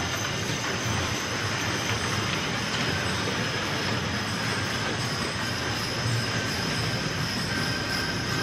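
Steady rumble of Belgian draft horse teams and their wagons moving around a dirt show ring: wagon wheels rolling and hooves, with no distinct single event.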